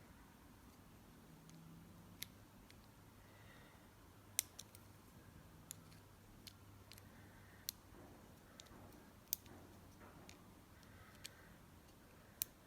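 About ten small, sharp clicks and ticks at irregular intervals, against near silence, as the tiny piston-pin retaining clip of an RC nitro engine is picked at to get it off.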